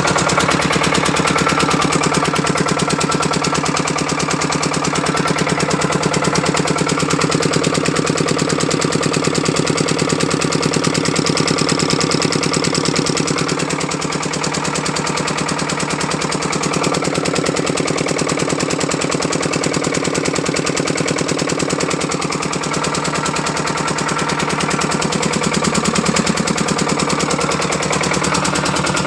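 5 hp engine driving a 4 kVA generator, running steadily with a rapid, even firing beat.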